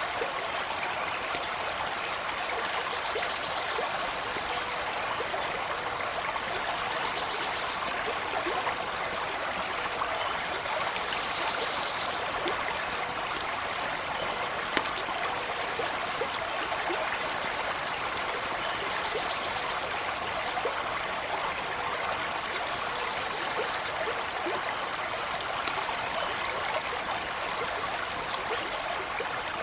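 A small stream running and trickling steadily, with scattered faint sharp clicks over it and one louder click about halfway through.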